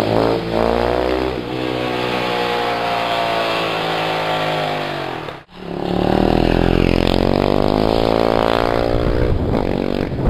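KTM 690 Duke's single-cylinder engine through an Akrapovič exhaust, revving up and then winding down with falling pitch, twice over. The sound breaks off sharply about halfway before the engine picks up again.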